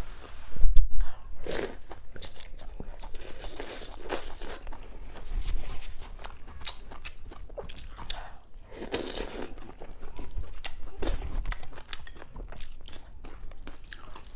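A person eating luosifen noodles with fried eggs close to the microphone: irregular crunching bites and chewing. A loud bump about a second in.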